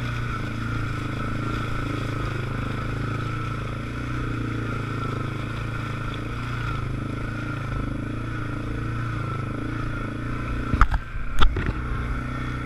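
ATV engine running steadily as the machine rides a rough, rutted trail. Near the end come two sharp knocks about half a second apart as it jolts over bumps.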